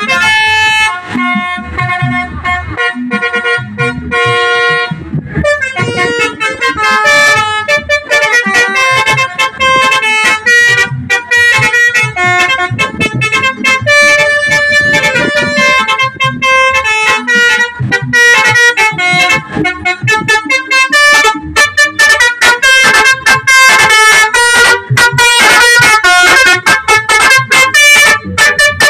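Indonesian 'telolet' musical bus horn playing a tune of air-horn chords that step from note to note. There is a short break about five seconds in, and quicker staccato toots in the second half.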